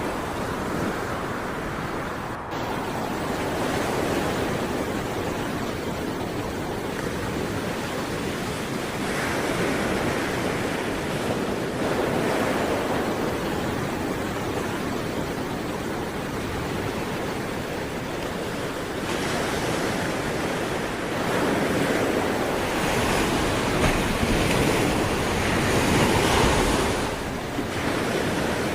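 Sea waves breaking and washing on the shore, a continuous rush that swells and eases every few seconds, with louder surges in the second half. Some wind noise on the microphone.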